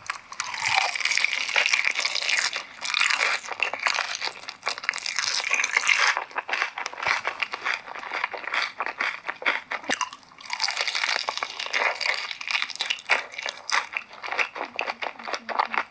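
A person biting into and chewing crunchy chicken close to the microphone: two loud spells of crunching, with quieter crackly chewing between them.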